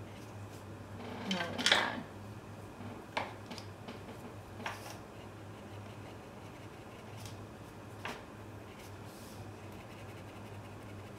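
Quiet handling sounds of watercolour painting: a brush rubbing on the paper, with a louder scrape or rustle about one and a half seconds in and a few light clicks and taps later, over a steady low hum.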